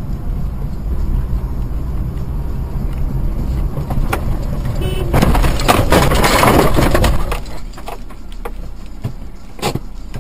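Road and engine noise inside a moving car on a snowy road. About five seconds in comes a loud crash: roughly two seconds of harsh noise with sharp knocks as the car goes off course and the dash camera is knocked upward. A few separate knocks follow as the car slows to a stop.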